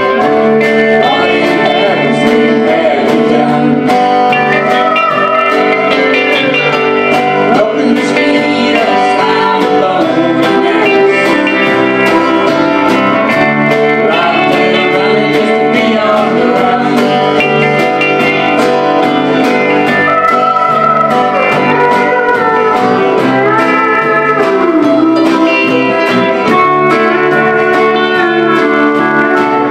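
Live band playing a country-blues song: acoustic guitar, bass guitar and drums, with a pedal steel guitar gliding between notes and a woman singing.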